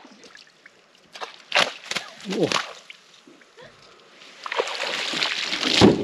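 Water splashing a few times, then a loaded cast net lifted out of the water into a boat, with water streaming and pouring off the mesh for the last second and a half.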